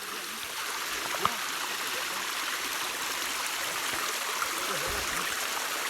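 Small mountain-stream waterfall, its water falling and running in a steady, even hiss.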